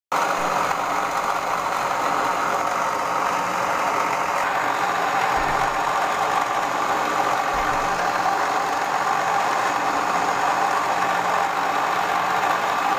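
Cosmos stand mixer's motor running steadily, its twin beaters whipping egg whites in the bowl.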